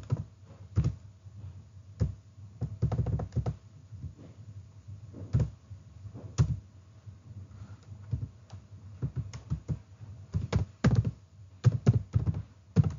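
Computer keyboard typing: irregular keystrokes in short runs with pauses between them.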